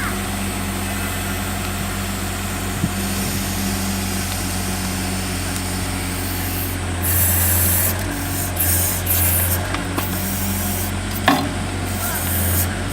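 A compact loader's engine runs steadily while the backhoe attachment works. From about halfway through, loud hissing comes and goes several times, with a sharp click near the end.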